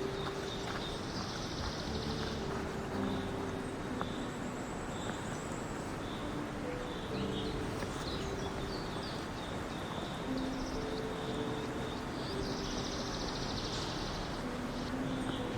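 Forest morning ambience: birds chirping, with two buzzy trills, over a steady wash of low outdoor noise, and a sequence of short low held notes.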